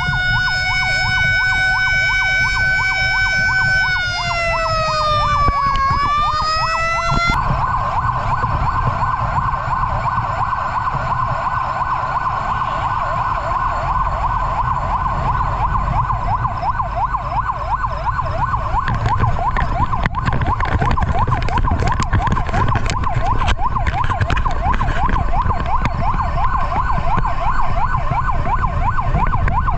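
Fire truck sirens on a responding pumper. An electronic yelp sweeps rapidly up and down several times a second throughout. For the first several seconds a second, held siren tone joins it, dipping and rising again before it stops. Underneath is the truck's low engine and road rumble, with a few sharp clicks in the second half.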